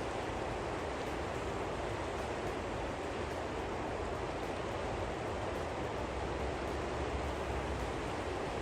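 Steady rushing noise like flowing water, even and unbroken, with no clear pitch.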